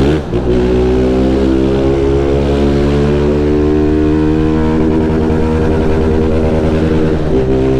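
Honda Fan 160's single-cylinder four-stroke engine running under way, its pitch climbing slowly as the bike pulls, then dipping near the end.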